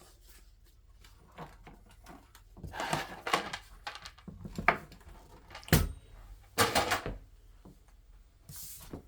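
A sheet of paper being put into a 1961 Groma Kolibri N portable typewriter: the paper rustles, the platen and levers click, and there is one heavier thunk a little before the middle.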